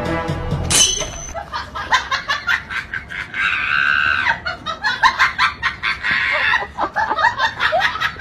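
Edited-in comedy sound effects: a quick rising whoosh about a second in, then rapid cackling laughter and shrill squeals.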